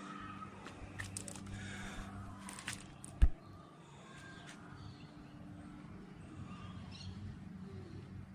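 Quiet outdoor ambience with a steady low hum and faint bird chirps, broken by a single sharp thump about three seconds in.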